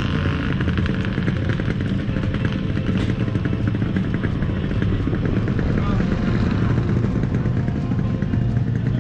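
An engine running steadily at an even pitch, with background voices.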